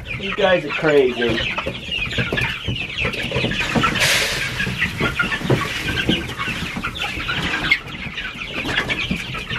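A flock of young chickens cheeping without a break, many short calls overlapping. About four seconds in, a brief rush of feed pellets is poured from a bucket into a plastic feeder.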